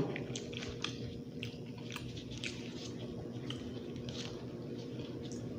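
A person chewing and eating close to the microphone, with scattered small wet clicks and smacks, over a steady background hum.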